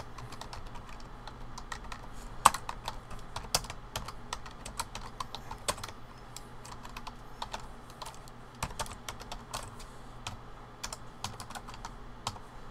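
Typing on a computer keyboard: a run of quick, irregular key clicks, with one sharper, louder keystroke about two and a half seconds in.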